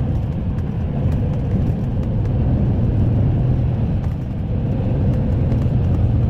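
Steady low rumble of a moving vehicle, with no change in pitch.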